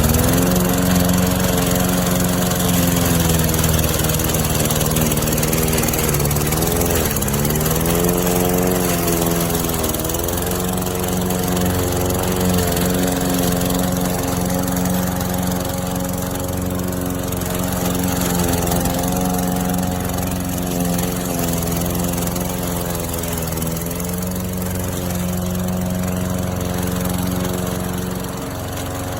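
Gas push mower's 144cc OHV single-cylinder engine running steadily at mowing speed, its pitch dipping briefly three times as it takes load and recovering.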